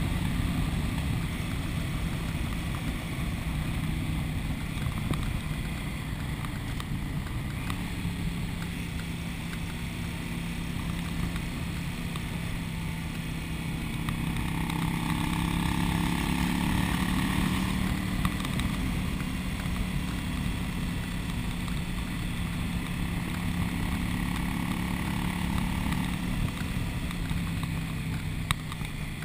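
Cruiser motorcycle engine running steadily at road speed, with wind noise over it. The engine swells a little louder about halfway through, then settles back.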